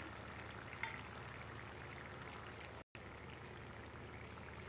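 Faint, steady sizzle of murukku frying in hot groundnut oil, with a light click about a second in.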